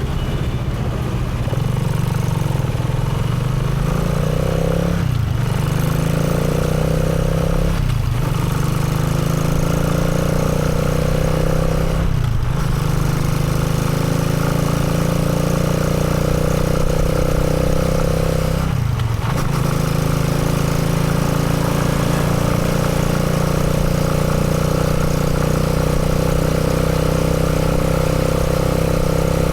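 Motorcycle engine running steadily under way. Its note drops briefly four times in the first twenty seconds and climbs again after each drop, then holds a steady pitch.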